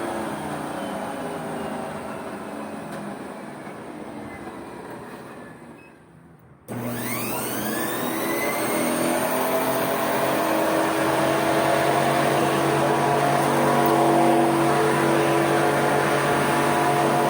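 Treadmill drive motor and belt running, slowing down and fading away. About seven seconds in it starts again abruptly and spins up, its whine rising in pitch and then settling into a steady hum.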